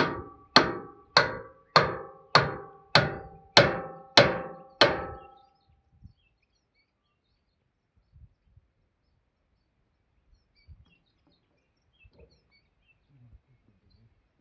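A series of about nine evenly spaced ringing metallic strikes, a little under two a second, each ringing on briefly; they stop about five seconds in, leaving near silence with a few faint low knocks.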